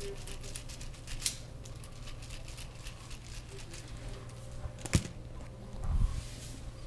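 Hands working over skin and hair in a barber's massage: a run of soft rubbing and tapping ticks, one sharp click about five seconds in and a dull low thud just after, over a steady low hum.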